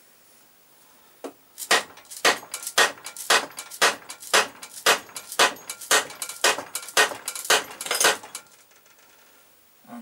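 A hammer striking the Honda CX500 V-twin's crankshaft to drive it out of the crankcase: about a dozen steady blows, roughly two a second, each with a short metallic ring.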